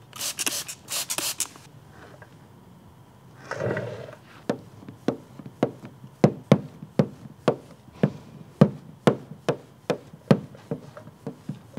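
Several quick spritzes from a hand spray bottle wetting the film and headlight, then a run of sharp ticks about twice a second.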